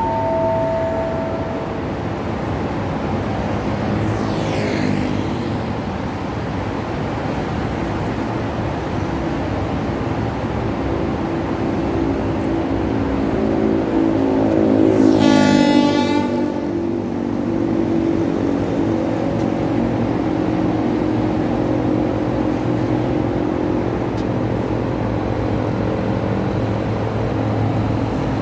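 Road traffic going past close by: one vehicle passes loudly about halfway through, its whine dropping in pitch as it goes by, and a brief two-note horn sounds right at the start. Underneath runs a steady low diesel drone from the slowly approaching locomotive.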